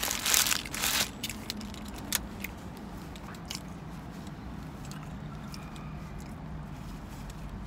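Paper napkin crumpling and rustling as hands and mouth are wiped, loudest in the first second, then fainter scattered rustles and small clicks over a steady low hum inside a car.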